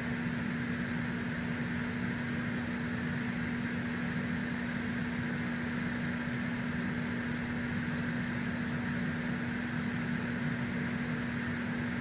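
Steady machine hum: one constant low tone over an even hiss, unchanging throughout.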